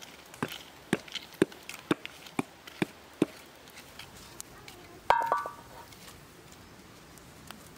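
A wooden stick knocking and raking through the campfire's charcoal embers, a string of sharp knocks about two a second. About five seconds in, a metal frying pan is set down on the hearth stones with a single ringing clang.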